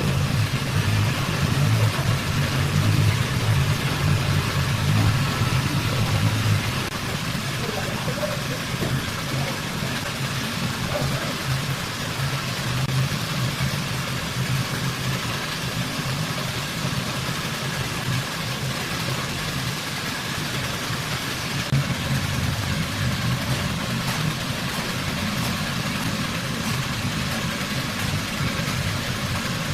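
A steady mechanical drone, like a motor or engine running without pause, with a low hum under a hiss.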